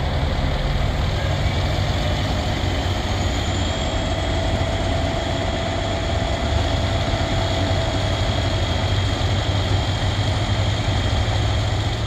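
Fire engine's diesel engine idling steadily, a low, even rumble with a faint thin whine above it.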